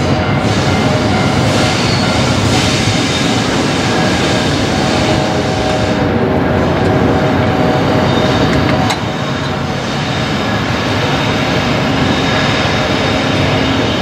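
A train's running noise, loud and steady, easing a little about nine seconds in.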